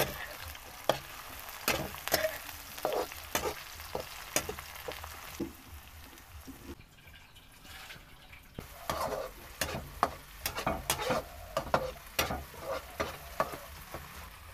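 Chopped ingredients sizzling in hot oil in a steel wok while a metal spatula stirs, scraping and clicking against the pan in quick, irregular strokes. The stirring drops away briefly near the middle, leaving a quieter sizzle.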